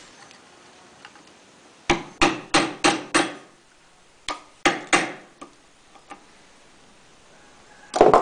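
Hammer strikes on a long steel tool set in the bore of a hydraulic cylinder gland clamped in a vise, knocking out the old seal from inside the end. Five quick metallic strikes at about three a second, three more after a short pause, then a single loudest blow near the end.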